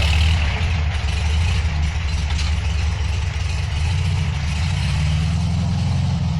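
Volkswagen air-cooled flat-four engine of a kit car idling steadily with a low, rapid rumble.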